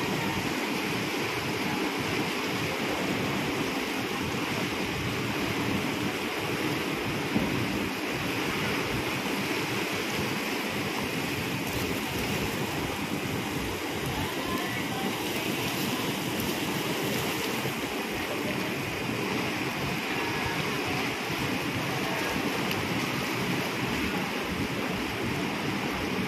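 Propeller wash of the passenger ship Sabuk Nusantara 106 churning the water beside the quay: a steady rushing, with the ship's engine running underneath. A single brief knock sounds about seven seconds in.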